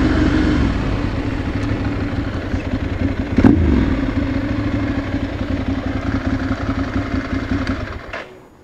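Ducati Monster 796's air-cooled L-twin running at low speed as the bike rolls slowly into a parking space, with one short knock about three and a half seconds in. The engine sound then stops abruptly near the end.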